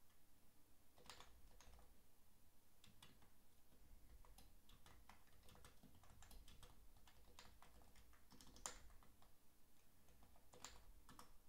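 Faint, irregular keystrokes on a computer keyboard as a command is typed, with one louder keystroke about nine seconds in.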